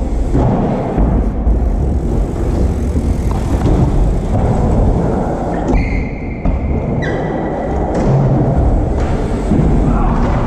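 BMX bike tyres rolling and carving around a skatepark bowl, a steady loud rumble. A brief high squeal cuts in about six seconds in and stops about a second later.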